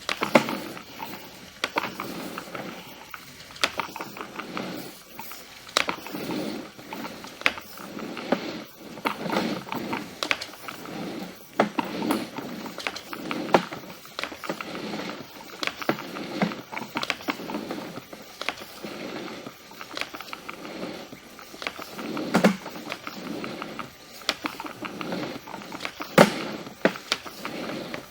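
A sewer inspection camera's push cable and reel knocking and clicking irregularly as the cable is fed down the sewer line from the cleanout.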